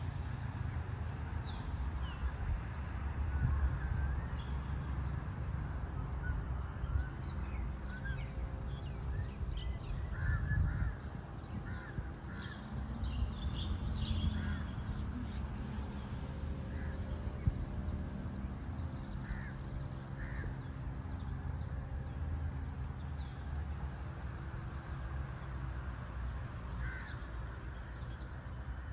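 Outdoor ambience of birds calling, many short calls scattered throughout, over a steady low rumble.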